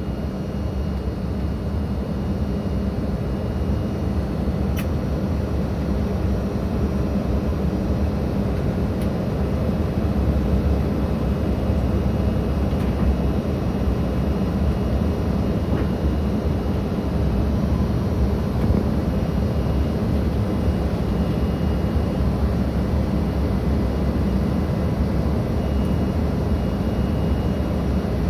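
Steady jet engine and airflow roar heard inside a regional jet's passenger cabin in flight, deep and even with a few faint steady tones.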